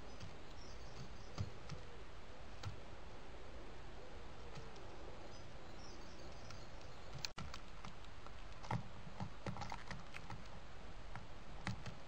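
Light scattered taps and clicks of a bird pecking at mealworms and seed in a plant-pot saucer, growing more frequent in the second half, over the steady hiss of a trail camera's microphone. Faint background birdsong chirps twice in the first half, and the sound drops out briefly a little after halfway.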